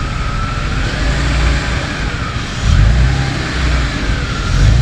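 Engine of the vehicle pulling a car out, running with its revs swelling several times, over a thin high whine that wavers slowly in pitch.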